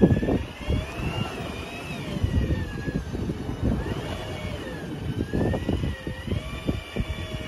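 An engine running, its whine slowly rising and falling in pitch, with wind buffeting the microphone in irregular low gusts.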